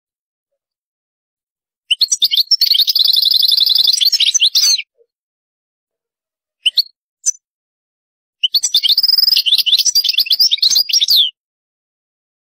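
European goldfinch singing: two fast twittering phrases, each about three seconds long, with a rapid trill in the middle. Two short call notes come between them.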